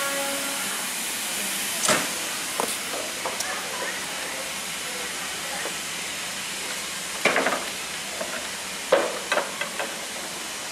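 Steady hiss of steam from a steam locomotive standing at the platform, with a few sharp knocks among it, the loudest about seven and nine seconds in.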